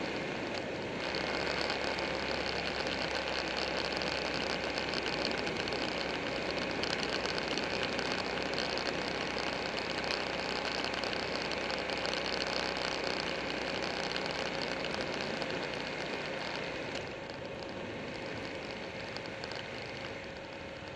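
Buell 1125R V-twin motorcycle engine running at road speed under heavy wind rush on the bike-mounted camera. It gets louder about a second in and drops back a few seconds before the end.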